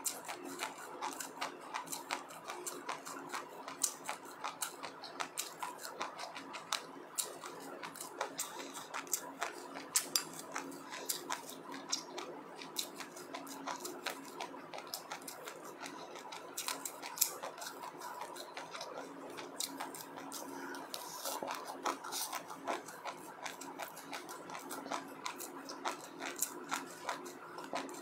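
Close-up chewing of sesame seeds and passionfruit: many small crisp crunches and clicks, several a second, over a faint steady hum.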